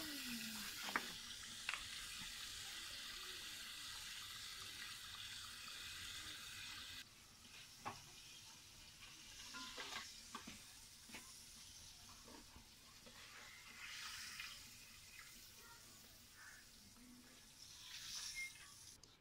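A metal spoon spreading mayonnaise over a soft burger bun: short soft scrapes, clustered about eight, ten, fourteen and eighteen seconds in. A steady faint hiss runs under the first part and drops away suddenly about seven seconds in.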